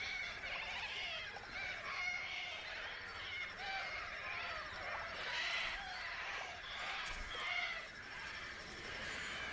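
A flock of little corellas calling, many short cries overlapping without a break.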